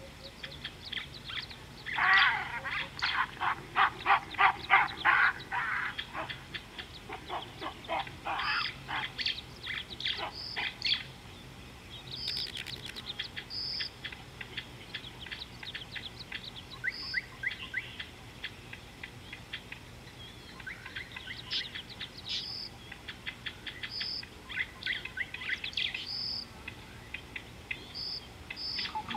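Wild birds calling: a loud, fast run of repeated sharp chirps about two seconds in, then scattered chirps and short high whistled notes that come and go.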